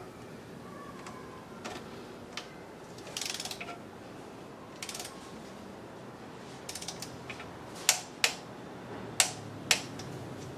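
Click-type torque wrench tightening the oil pan bolts of a Mercedes 722.6 automatic transmission to 8 N·m: a few short bursts of ratchet clicking, then four louder single clicks in the last few seconds as the wrench releases at its set torque.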